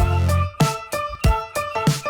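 Background music: an instrumental track with a steady beat, a low hit about every 0.6 s under short pitched notes.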